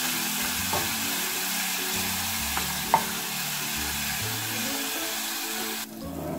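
Garlic paste sizzling in hot oil in a metal saucepan while a wooden spoon stirs it, knocking against the pan twice, the sharper knock about three seconds in. The sizzle cuts off suddenly near the end.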